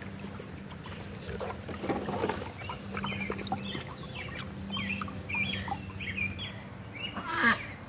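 Birds chirping over and over in short calls, with one louder, harsher call near the end.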